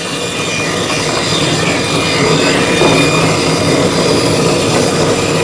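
Bandsaw running, its blade cutting through an ash plank being shaped into a hurl, with a steady mechanical noise throughout.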